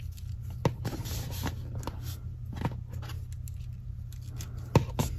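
Plastic action figure being posed by hand: a few sharp clicks from its leg joints among light rubbing and handling noise, over a steady low hum.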